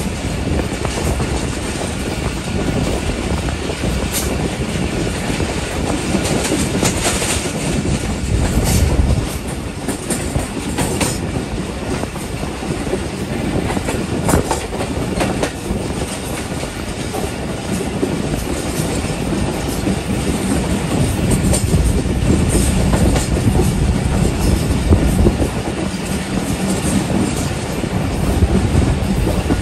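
Passenger train coaches running on jointed track, heard from an open doorway: a steady rolling rumble of wheels on rails with irregular clicks as the wheels pass rail joints.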